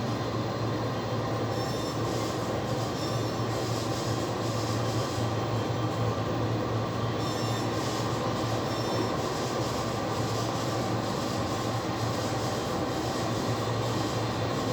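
Steady low drone of a jet airliner at the gate, with a constant hum and a wash of mechanical noise, and patches of higher hiss that come and go.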